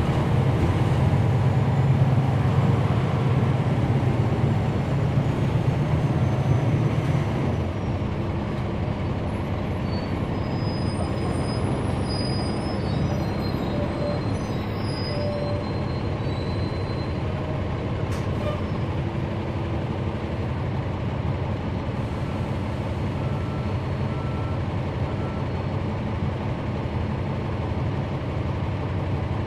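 Cummins ISL9 diesel engine of a NABI 416.15 transit bus heard from inside the cabin, running loud for the first seven seconds or so, then easing off to a lower, steady running sound.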